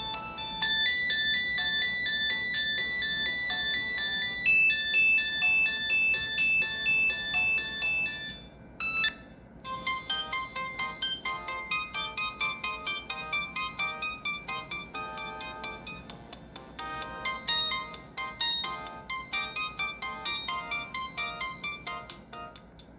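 Samsung GT-E1151 mobile phone playing its built-in polyphonic ringtone melodies: one chiming tune for about the first eight seconds, a short break, then a different, busier melody that dips briefly about two-thirds of the way through before carrying on.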